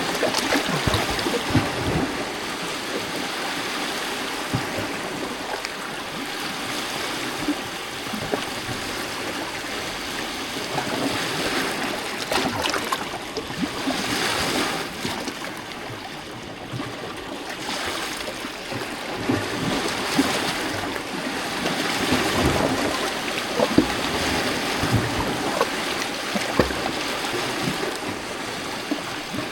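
Small lake waves lapping and splashing against rocks at the shore, a continuous wash of water with frequent small splashes and gentle swells in loudness every few seconds.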